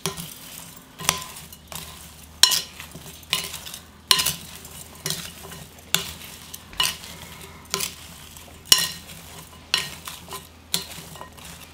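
Long wooden spoon tossing julienned Korean radish with salt and sugar in a glass mixing bowl: the strips rustle, and the spoon knocks sharply against the glass about once a second, a little unevenly.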